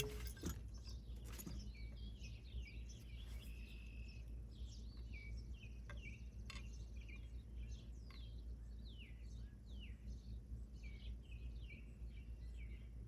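Small birds chirping and singing in many short, quick falling notes, over a steady low background rumble, with a couple of faint clicks.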